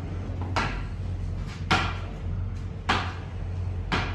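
Hard tennis ball bounced repeatedly on the face of a popular willow cricket bat: four sharp wooden knocks about a second apart.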